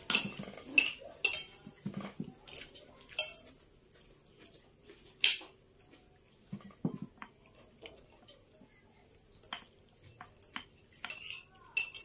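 Metal spoon clinking and scraping against a plate while eating, in scattered sharp clicks: frequent at first and again near the end, sparser in between, with the loudest strike about five seconds in.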